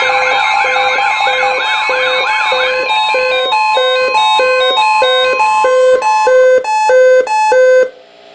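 Electronic alert tones: warbling siren glides layered over a beeping alarm that pulses about twice a second. From about three seconds in, a stepped pattern of higher beeps joins in, and all of it cuts off abruptly near the end.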